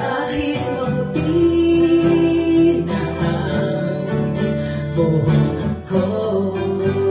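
Live acoustic guitar and electric keyboard playing a slow ballad, with a woman singing through a microphone and drawing out long held notes.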